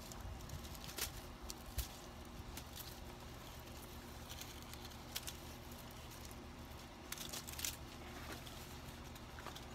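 Sweet potato vines being cut back with hand pruning shears and pulled through the leaves: a scattering of faint snips and leaf rustles over a low, steady background rumble.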